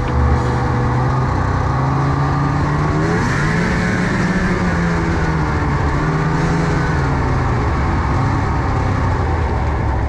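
Snowmobile engine running at speed, its pitch rising as the throttle opens about three seconds in, then wavering up and down as the sled is ridden.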